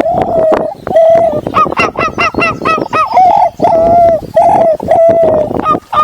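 Wild turkeys calling, a loud, rapid, overlapping series of yelps, each stepping from a higher note down to a lower one, several a second.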